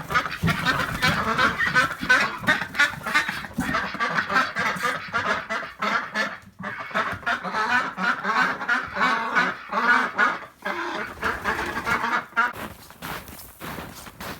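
A flock of domestic ducks quacking, many short calls overlapping in a rapid, continuous chatter that dies down near the end.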